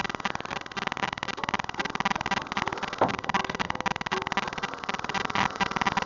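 Walk-behind lawnmower engine running steadily, a rapid even chatter of firing strokes.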